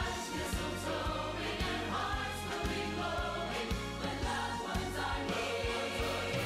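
Christmas music: a choir singing over a band with a steady beat.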